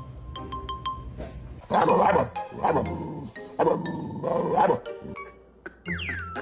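Background music with plinking mallet-like notes, over which a dog lets out four loud vocal outbursts about a second apart, starting about 1.7 s in.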